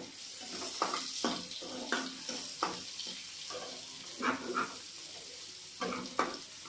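Metal spatula stirring and scraping chopped tomatoes and onions frying in oil in a nonstick kadai, in repeated irregular strokes over a steady sizzle.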